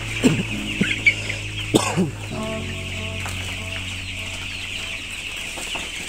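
A large flock of 14-day-old broiler chicks cheeping together, a dense, steady, high-pitched chorus.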